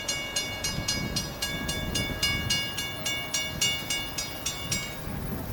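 Railroad grade-crossing warning bell ringing quickly and evenly, about four strikes a second, then stopping just before the end.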